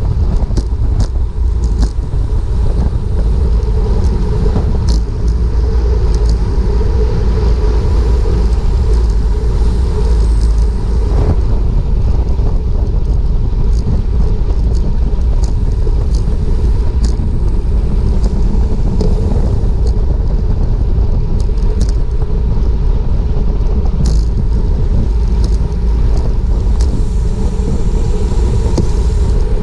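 Wind buffeting a GoPro's microphone on a racing bicycle at speed, with steady road and tyre rumble and scattered sharp clicks.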